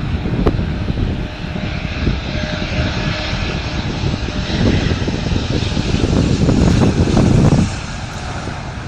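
Jet airliner's engines, a steady rushing rumble that builds and then drops away suddenly about a second before the end.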